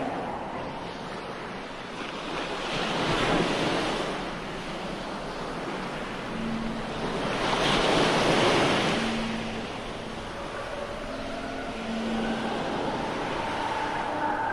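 Sound effect of ocean surf: waves washing in and out, swelling twice, with faint sustained tones coming in near the end.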